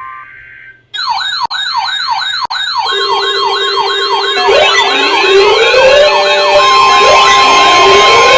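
Electronic sirens. A short steady electronic tone fades out at the start. About a second in, a fast up-and-down yelp siren starts, cut twice by brief dropouts. From about three seconds a steady tone and slow rising wails join it, building into several sirens sounding at once and growing louder.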